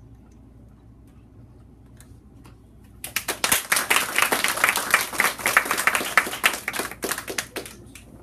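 Small audience applauding, starting about three seconds in and dying away near the end.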